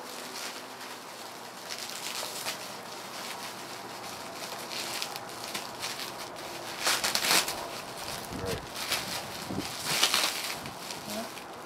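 Plastic bubble wrap crinkling and rustling as it is handled and pulled open, with louder bursts of crackling about seven seconds in and again near ten seconds.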